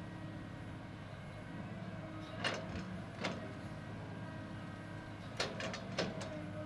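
CAT 315C excavator's diesel engine running steadily, with sharp metallic clanks: two about midway and a quick cluster near the end.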